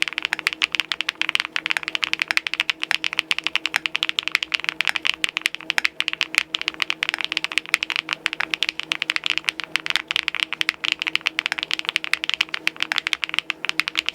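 Mechanical keyboard fitted with rounded Emoji-profile keycaps on 'cheese' switches, typed on quickly and continuously: a dense, steady stream of clacking keystrokes.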